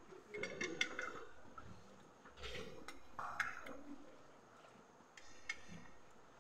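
Faint clinks of cutlery and a ceramic mug against a plate, scattered a few at a time, with soft sips from the mug.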